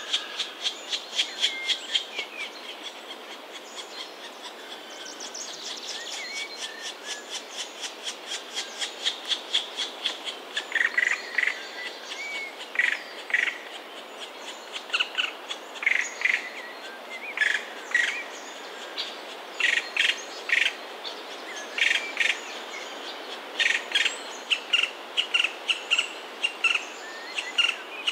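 Black woodpecker nestlings squawking from the nest cavity: a fast run of short repeated high calls, then louder calls in bunches from about ten seconds in.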